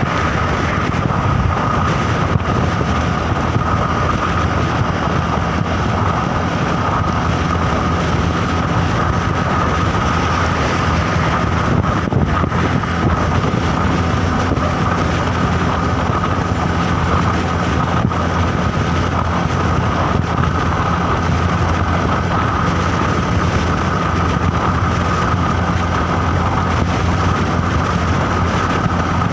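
Steady running-vehicle noise: a low engine and road rumble with a steady high whine over it, unchanging.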